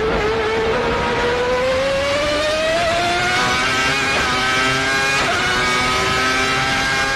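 Ferrari Formula One V12 engine at high revs, its pitch climbing steadily for a few seconds and then holding high, with quick dips at gear changes about four and five seconds in.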